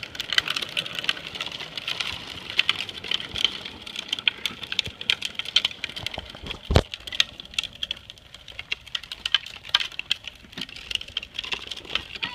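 Hard plastic wheels of Big Wheel tricycles rolling over asphalt: a dense, irregular clatter of small clicks, with one sharper knock about seven seconds in.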